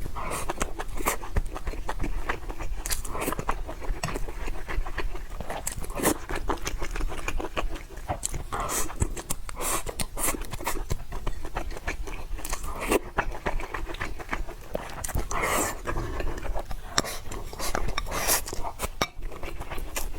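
Close-miked eating of spicy noodles: wet chewing and slurping, with many short mouth clicks and breaths.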